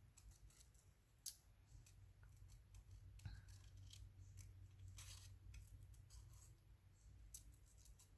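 Faint snips of small scissors cutting paper: scattered short crisp clicks, the sharpest about a second in and another about five seconds in, over a steady low hum.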